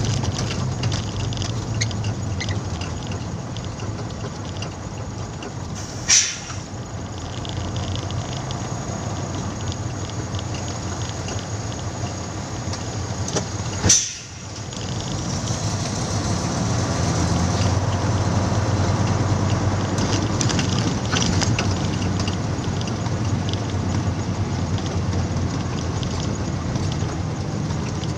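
Container truck's diesel engine running and road noise, heard from inside the cab as a steady low drone. A short sharp hiss cuts in about 6 seconds in and again about 14 seconds in.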